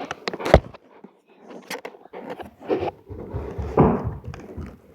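Knocks, clicks and rustling of a small puzzle package being handled and opened, with one sharp knock about half a second in and a longer stretch of handling noise past the middle.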